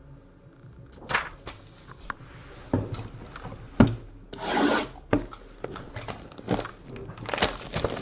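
A sealed trading-card box being handled on a tabletop: irregular knocks and scrapes of the cardboard box, then crinkling of its plastic shrink wrap being torn off near the end.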